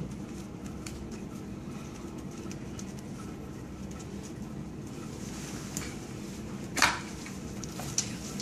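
Handling of plastic CRRT tubing lines, with faint rubbing and ticking over a steady low machine hum, and a sharp snap about seven seconds in followed by a smaller one a second later.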